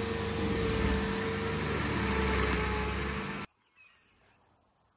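An engine running steadily, with a held tone over a low hum, cuts off abruptly about three and a half seconds in. Faint, high insect chirring is left.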